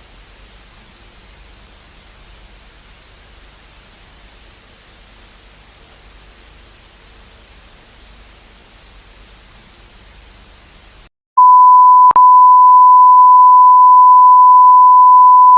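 Faint steady static hiss, then after a brief silence a loud, steady, single-pitched electronic beep tone that runs to the end, broken once by a short click soon after it starts. This is the tone signal of a mock Emergency Alert System broadcast.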